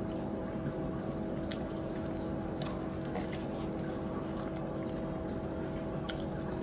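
A person quietly chewing food, with a few faint wet mouth clicks, over a steady hum of several fixed tones.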